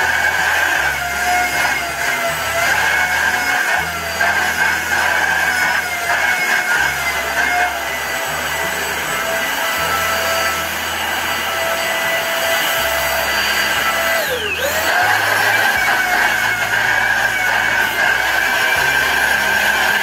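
Mondial Turbo Cycle corded handheld vacuum cleaner running over sofa upholstery, a steady high motor whine whose pitch wavers slightly as the nozzle is worked. About fourteen seconds in the whine swoops sharply down in pitch and straight back up.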